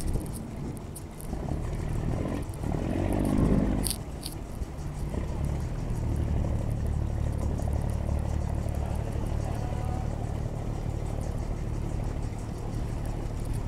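Fishing boat's engine running at low speed with a steady low drone as the boat gets under way from the pier. Louder, uneven sounds and a sharp click come first, in the first four seconds, before the drone takes over.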